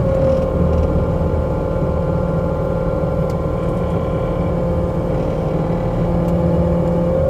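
New Holland C327 skid steer's diesel engine running steadily under load while lifting a heavy fuel tank, with a constant whine over the engine drone.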